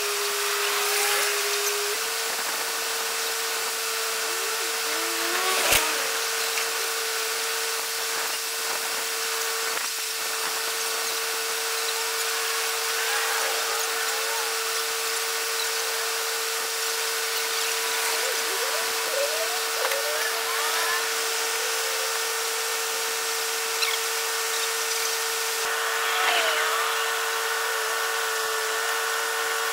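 Steady machine whine at one constant pitch, stepping up slightly about two seconds in. Scattered short chirps sound over it, and there is a single sharp click near the middle.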